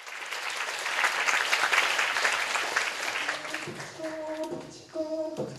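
Audience applause that dies down; about three and a half seconds in, an a cappella group comes in with held chord notes, broken off briefly twice.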